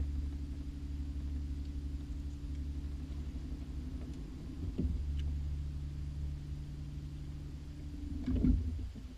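Bow-mounted electric trolling motor on a bass boat humming steadily, with a couple of dull thumps on the deck about halfway through and near the end. The hum cuts off at the end.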